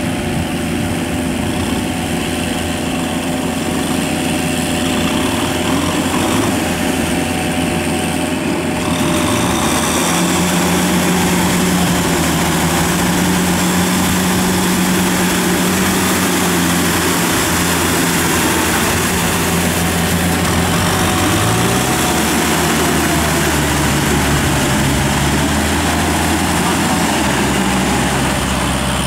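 Kubota tractor's diesel engine running steadily as the tractor pulls its steel cage wheels through a flooded rice paddy. The sound gets louder about nine seconds in, and the engine note shifts around twenty-two seconds in.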